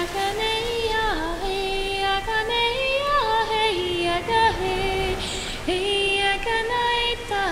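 A single woman's voice singing a wordless, chant-like 'light language' melody, holding notes and sliding down or scooping up in pitch between them.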